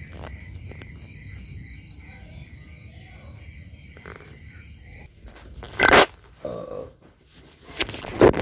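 Crickets chirping in a steady high trill that stops about five seconds in. A loud, short, sharp sound comes about six seconds in and another near the end.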